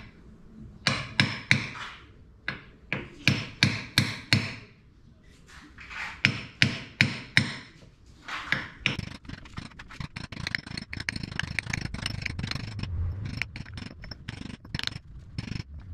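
Hammer blows on a metal driver held against the front axle hub of a Deutz-Fahr Agrotron 100 tractor, tapping a new oil seal into its seat. The sharp strikes come in three groups of four to six with short pauses, then a longer run of quicker, lighter taps.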